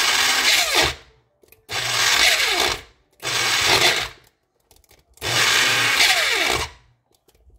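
Electric grinder pushed down and run in four short pulses of about a second each, grinding crayfish. The motor winds down with a falling whine after each pulse.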